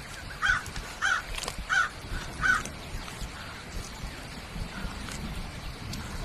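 A crow cawing four times in a row, about two-thirds of a second apart, over steady low background noise.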